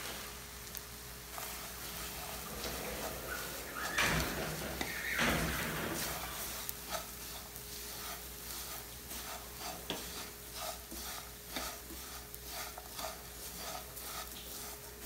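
Spatula stirring cassava flour through butter, bacon and nuts in a nonstick frying pan as the farofa toasts, with a faint sizzle underneath. A couple of longer sweeps come about four and five seconds in, then short, even scraping strokes about twice a second.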